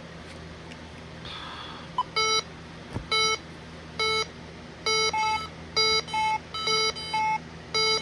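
Bosch alarm-system keypads beeping as the system is armed with an access card, typical of the exit-delay warning. A short chirp about two seconds in, then repeated beeps about once a second, coming faster from about five seconds in, with a second, higher beep alternating with the first.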